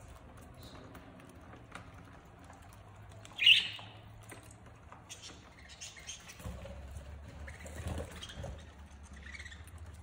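A flock of budgerigars chirping softly, with one loud, sharp squawk about three and a half seconds in, amid light ticking and scratching.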